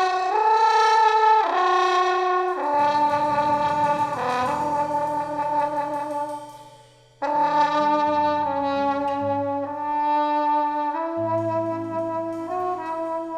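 Brass ensemble playing held chords in an instrumental passage. It breaks off briefly about six seconds in and then comes back in.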